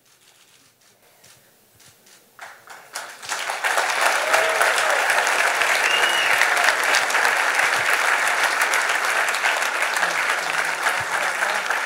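Audience applause. It begins as a few scattered claps, swells over about a second, and from about three and a half seconds in is full, steady clapping.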